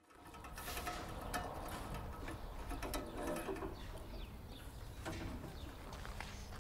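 Outdoor ambience at a hand-drawn well, fading in at the start: scattered knocks and clunks of a bucket, rope and plastic jerrycans being handled, with a few faint bird chirps.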